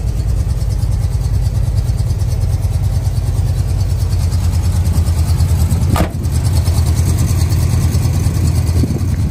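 Big-block V8 of a 1979 Ford pickup idling with a steady low rumble. A single sharp knock about six seconds in.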